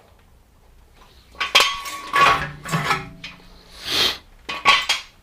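Metal tools clinking and clanking against a BMW E46 M3's brake caliper as its 13 mm bolts are undone to remove it: several separate sharp clinks, some ringing briefly, starting about a second and a half in.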